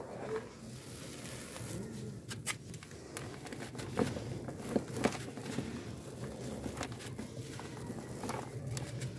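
Hands squeezing and crumbling a dry, gritty chunk of charcoal powder, a steady crumbly rustle with a few sharp crunches in the middle; near the end, loose powder sifts down from one hand.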